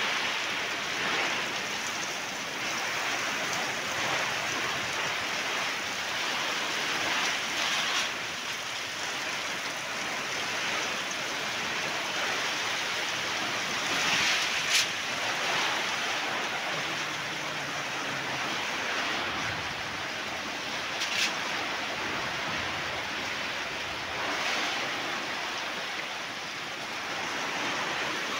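Heavy rain pouring down in a windstorm: a steady rushing hiss that swells and eases a little with the gusts. A few single sharp taps stand out, about 8, 15 and 21 seconds in.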